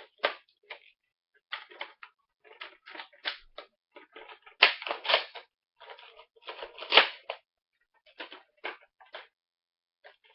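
Plastic clicking and rattling from handling and loading a Nerf blaster: irregular clusters of short clicks, louder about four to five seconds in and again around seven seconds.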